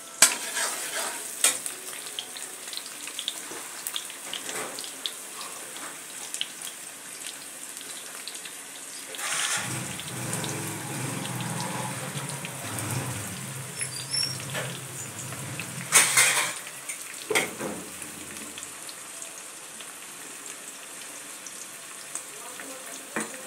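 Food sizzling in a hot pan, with sharp knocks of a utensil against the pan near the start and about two-thirds of the way through. A louder stretch of rushing noise with a low hum runs through the middle.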